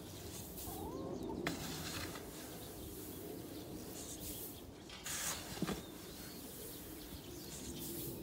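Dry husk litter scooped with a metal scoop and tossed over soil, pattering and hissing down in several bursts, with a few clicks of the scoop. A short rising bird chirp comes about a second in.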